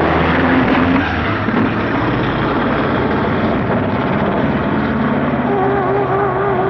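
A Cadillac CTS-V twin-turbo V8 and a turbocharged 1G DSM (Eagle Talon TSi with a Holset HX40 turbo, on E85) at full throttle from a dig. They pass close, then get a little quieter about a second in as they run away down the road, the all-wheel-drive DSM spinning its tyres through first and second gear.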